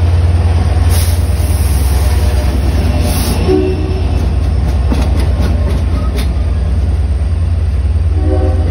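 LIRR DE30AC diesel locomotive departing with bi-level coaches, passing at close range: the diesel engine drones loudly and steadily under load, with a few sharp clicks from the wheels as the cars roll by.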